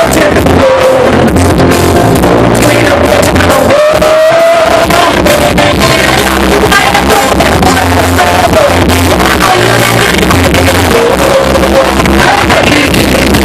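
Live rock band with a singer, played very loud through PA speakers and recorded right beside them, so the sound is harsh and distorted.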